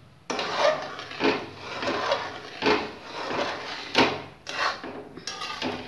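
Steel fork scraping and stirring thick moong dal halwa against the bottom and sides of a metal kadhai, in repeated strokes of about one every half to two-thirds of a second.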